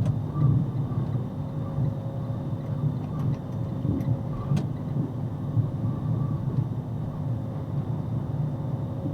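Steady low rumble of a moving vehicle, road and engine noise.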